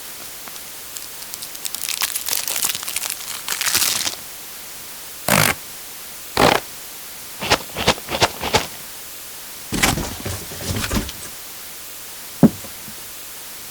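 Paper and cardboard box handling sound effects: a stretch of crinkling and tearing, then a series of short separate scrapes and clicks, with one sharp click near the end.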